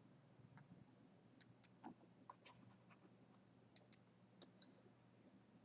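Near silence: faint, scattered ticks of a stylus tapping on a tablet screen during handwriting, over a low steady hum.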